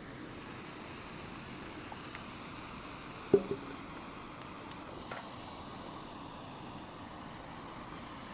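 Steady faint hiss with a thin high whine, broken a little over three seconds in by one sharp click and a softer second click just after; a few faint ticks elsewhere.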